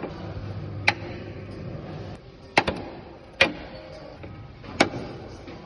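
Car suspension knocking: four sharp knocks at irregular intervals over a steady low running noise. The knock persists even with a newly replaced silent block (rubber suspension bushing).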